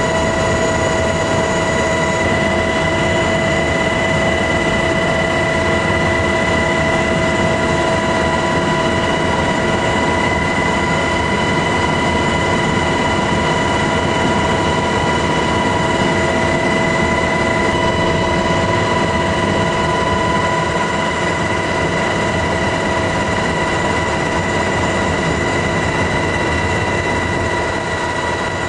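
MH-60S Knighthawk helicopter in flight, heard from inside the cabin: a steady, unbroken rumble of engine and rotor noise with several constant high whining tones.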